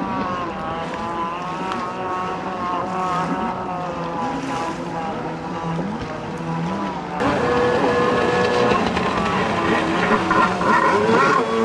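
Stand-up jet ski engines racing, the note rising and falling as the throttle is worked through turns. About seven seconds in, the sound abruptly gets louder, with a steadier engine note.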